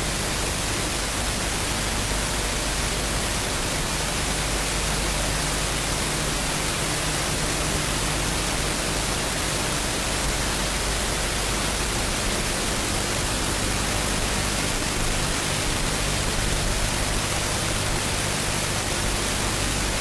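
Steady hiss with a low, even hum underneath and nothing else: the background noise of an old video recording with no narration.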